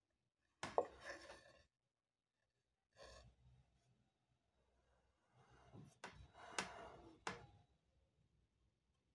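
Faint handling noise: a sharp click as the stainless-steel stethoscope chestpiece is set down on a stone countertop, with brief rustling. Later come three more sharp clicks about half a second apart, with rustling between them.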